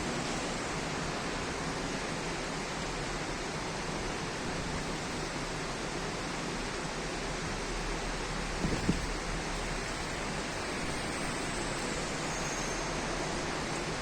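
Heavy rain falling in a thunderstorm, a steady, even hiss, with one brief low thump near the end of its ninth second.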